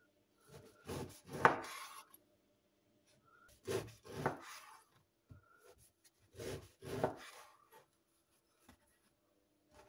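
Knife sawing through a crusty loaf on a wooden cutting board, the crust crunching: three slices, each cut with a few quick strokes.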